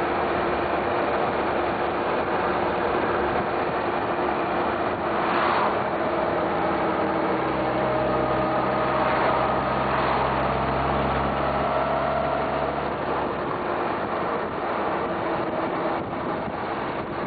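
Motorcycle riding at road speed: engine running under a steady rush of wind on the microphone.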